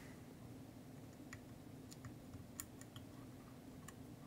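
Faint small ticks and clicks, about half a dozen at uneven intervals, from fingers handling a small component and a circuit board as the part's leads are seated in their holes. A faint low hum sits underneath.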